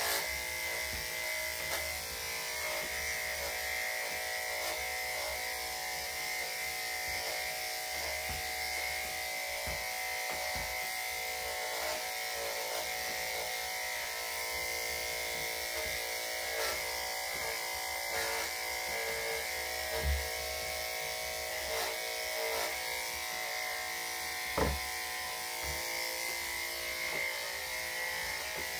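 Corded electric dog clippers fitted with a #7 blade running with a steady buzz as they shave the body coat, leaving a little fur rather than cutting to the skin. There are two brief knocks late on.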